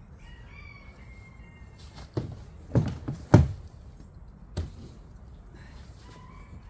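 Dull knocks and thuds of fishing gear being set down and shifted inside a small plastic boat: a handful of them in the middle, the loudest about three and a half seconds in.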